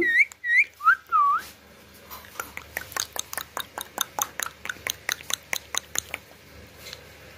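A few short whistled glides, rising and falling, in the first second and a half, whistled to a pet Indian ringneck parakeet. Then comes a run of quick, sharp clicks, about four or five a second, lasting roughly four seconds.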